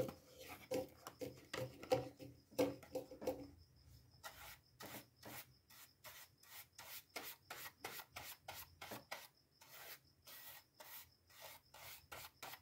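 A bristle paintbrush wiping acetone across the cardboard back of a toy-car blister card, wetting the card to loosen it. It makes a faint run of short scratchy strokes, a couple a second, with some louder handling knocks in the first few seconds.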